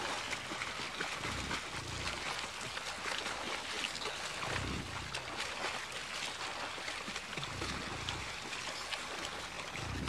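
Shallow river rushing steadily over a rocky bed as American bison wade through it, with low dull thumps every second or two.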